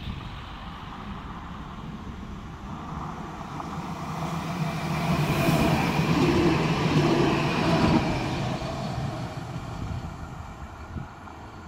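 Electric Siemens Avanto (U 25500) tram-train passing close by. Its running noise builds and is loudest for a couple of seconds as it goes past, then fades away.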